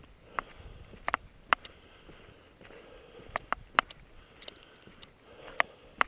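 Footsteps on a wet, rain-soaked road, with sharp clicks at irregular intervals over a faint background hiss.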